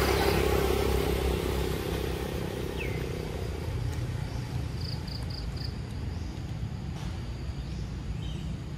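A low rumble that slowly fades, with four quick high chirps about five seconds in.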